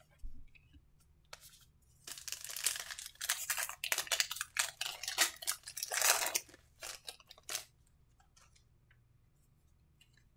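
Wrapper of a 2022 Panini Select baseball card pack being torn open and crinkled by hand. There is a short crackle about a second in, then a dense run of crackling tears and rustles for about five seconds that stops well before the end.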